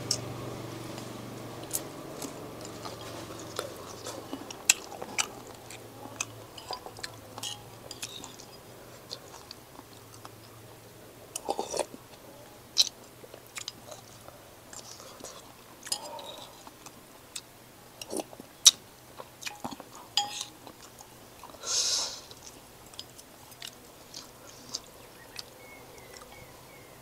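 A person eating noodles: chewing and slurping, with scattered sharp clicks and taps of a spoon and chopsticks against a ceramic bowl, and a few short louder slurps.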